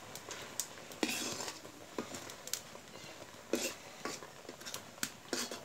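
Steel spoon stirring thick semolina and milk in a black karahi, scraping round the pan, with about three louder scrapes or knocks against the metal.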